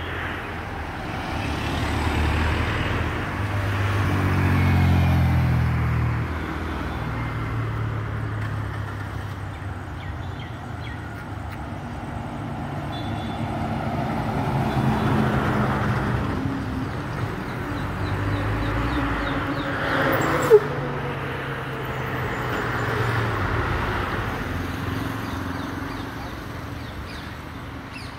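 Road traffic passing close by, cars and a truck going by one after another, each swelling and fading away. One passing engine's note drops in pitch as it goes by. There is a single sharp click about two-thirds of the way through.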